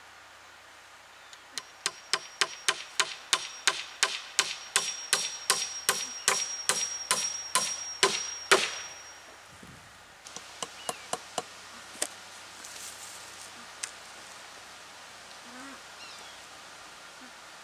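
Hammer driving a nail into the wooden rails of a pole fence: about twenty steady strikes, roughly three a second, with a high ring under them, ending in a harder blow. After a short pause come a quick run of five lighter taps and a couple of single knocks.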